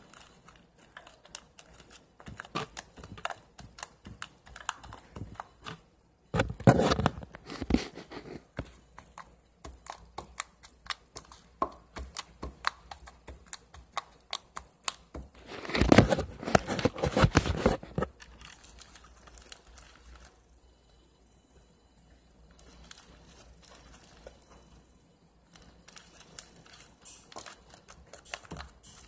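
Hands squishing and stretching green slime, making a stream of small sticky pops and crackles. It gets louder for a couple of seconds about six seconds in and again about sixteen seconds in, and goes quiet for a while around twenty seconds.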